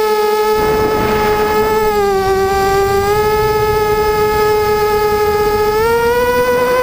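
Quadcopter's brushless motors and propellers whining in flight as one steady pitched tone. The pitch drops a little about two seconds in and rises again near the end as the throttle changes.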